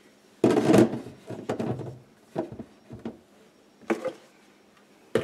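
Stacked plastic food storage containers sliding and clattering onto a cabinet shelf: a loud scrape about half a second in that fades over the next second, then a few light knocks.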